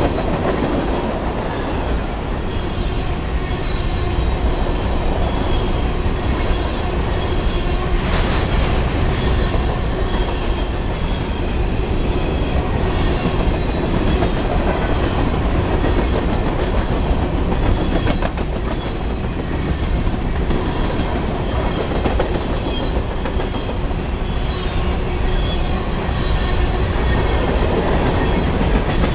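Freight train of covered hopper cars and boxcars rolling past close by: a steady rumble of steel wheels on rail, with clickety-clack as the wheels pass over rail joints, thickest a little past halfway.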